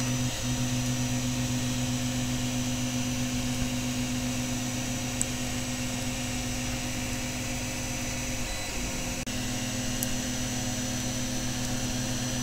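Steady low hum with an even hiss over it, as of a motor or electrical appliance running, shifting briefly about nine seconds in.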